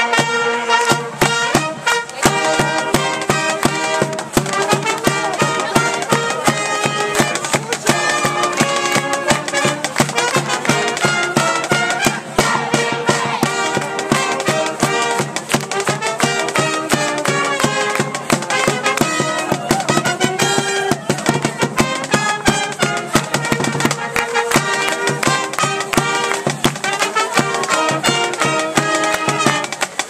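Pep band playing an upbeat fight song on trumpets and other brass over a steady drum beat.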